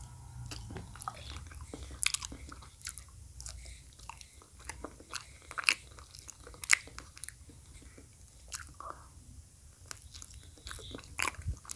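Close-miked wet mouth sounds of a person biting and chewing a soft peeled banana: irregular sticky lip smacks and clicks, a few much louder than the rest.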